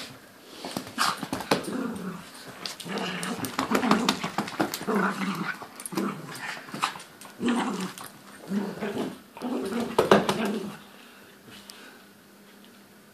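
Toy poodle growling in repeated bursts while shaking and tugging at a plush teddy in play, with a few sharp clicks mixed in; the growling stops about two seconds before the end.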